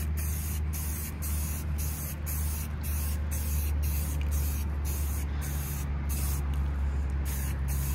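Aerosol spray paint can hissing steadily in light passes, laying a base coat on a rifle, over a steady low hum.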